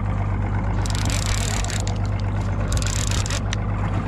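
A boat engine runs at idle, a steady low hum, while a fishing reel is cranked to bring a hooked fish up. The reel's whirring and clicking comes in spells over the hum.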